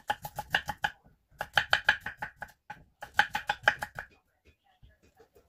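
Rapid sharp knocks with a hard, ringing edge, about seven a second, in three short runs with brief pauses between them.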